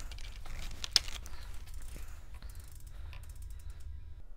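Clatter and clicking of an e-mountain bike being hung from a hanging scale on a repair stand: a sharp click about a second in, then a run of quick clicks, over a low rumble of handling.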